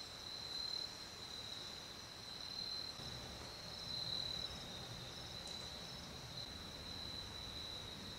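Crickets trilling steadily in the background, one continuous high-pitched trill.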